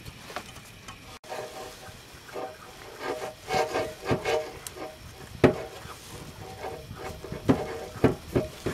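Handling noise as a car's muffler is worked back onto its rubber hanger mounts: rubbing and scraping with scattered knocks of the metal, the sharpest about five seconds in and a few more near the end.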